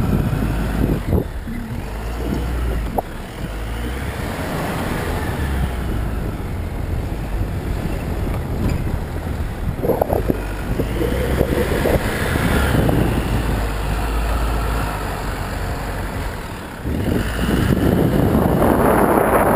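Jeep Wrangler JK's diesel engine running as it drives over sand dunes, with wind rushing over the outside-mounted camera microphone. The noise swells louder near the end.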